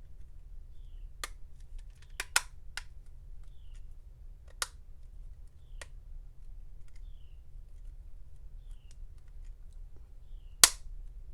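Sharp plastic-and-metal clicks and snaps of an iPod's case and parts being pressed back together, about seven in all, the loudest one near the end.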